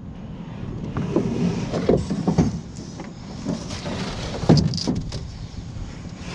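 A vehicle running, with a few short knocks and rattles over its steady low rumble.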